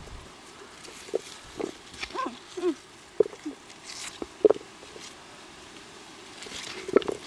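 A string of short human grunts and throat noises.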